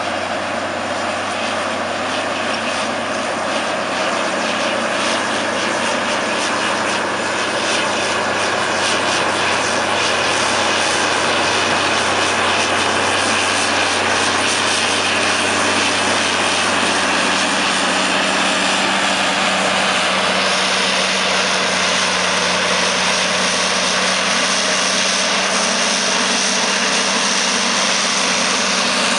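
Caterpillar D8T crawler bulldozer's six-cylinder C15 diesel engine working under load as the dozer pushes soil with its blade. The sound grows louder over the first ten seconds or so as the machine comes closer, then holds steady.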